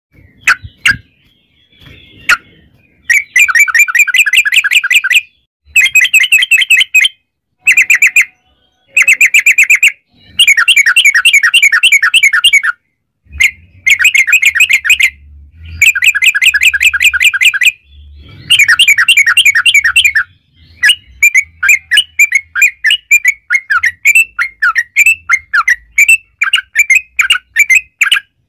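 Yellow-vented bulbul (trucukan) singing loudly in long rapid chattering runs, the 'ropel panjang' song: fast repeated notes rattled off in bursts of one to two seconds with short pauses. Near the end the runs break up into looser, separate notes.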